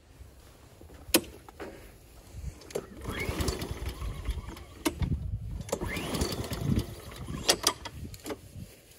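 Honda walk-behind lawn mower being pull-started: two pulls of the recoil cord, about three and six seconds in, each cranking the engine briefly without it catching, with a few sharp clicks around them. The engine won't start, which the owner puts down to the cold.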